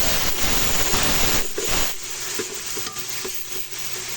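Onion and tomato masala sizzling in hot oil in a cooking pot as it is stirred. It is louder for about the first two seconds, then quieter with a few light clicks.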